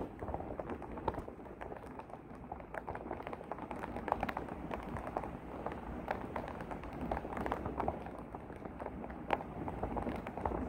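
Shallow muddy floodwater rushing across a yard, a steady wash broken by many small splashes and gurgles.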